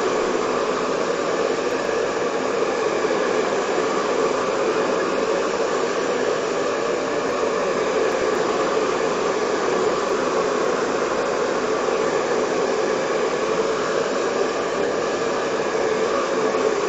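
Hand-held hot-air dryer blowing steadily, held close over a wooden board to dry freshly applied texture paste.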